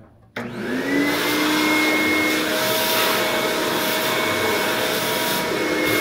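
Wet/dry shop vacuum switched on about half a second in. Its motor spins up with a short rising whine, then runs steadily at full speed with a loud rushing suction as the hose nozzle is worked over a wooden cabinet.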